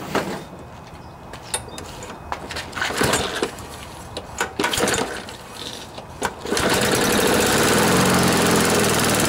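Briggs & Stratton lawnmower engine being pull-started: a few pulls of the recoil starter rope, then the engine catches about six and a half seconds in and runs steadily. Its sheared flywheel key has just been replaced.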